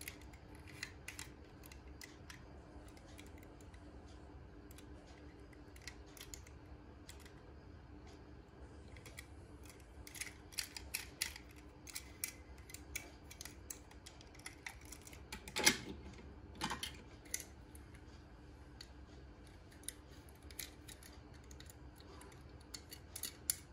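Faint clicks and taps of die-cast metal toy cars being handled and turned in the fingers, scattered and busier in the second half, with one louder knock a little past the middle. A low steady hum runs underneath.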